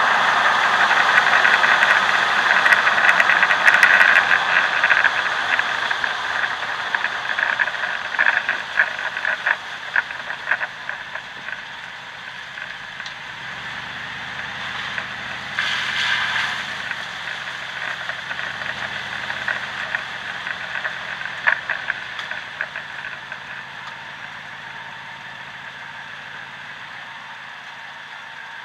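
Road and tyre noise with clicks and rattles from beneath a moving truck, picked up close to the rear axle and driveshaft. It fades steadily as the truck slows to a stop, the rattling thinning out after the first third.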